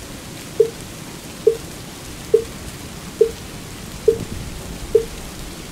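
Wooden fish (mu yu) struck in a slow, even beat: six short knocks of the same pitch, a little under a second apart, over a steady patter of rain.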